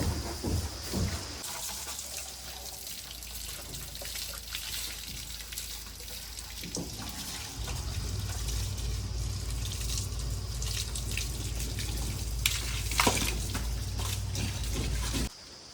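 Heavy diesel engine of a backhoe loader running, its low note growing louder about halfway through as it works, under a steady rushing hiss with scattered clicks. It cuts off abruptly near the end.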